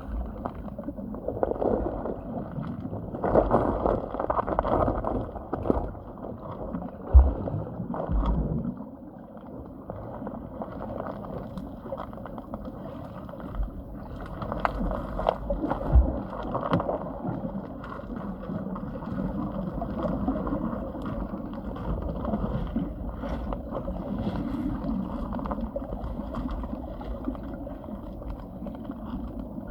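Muffled water sloshing and gurgling, with a couple of dull low thumps about seven and sixteen seconds in.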